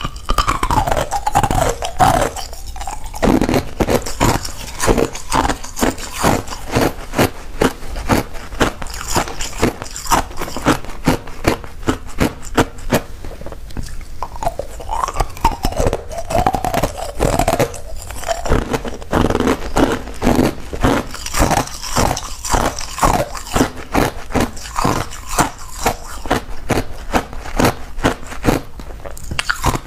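Clear ice cubes being bitten and chewed, a fast, irregular run of sharp crunches that goes on the whole time.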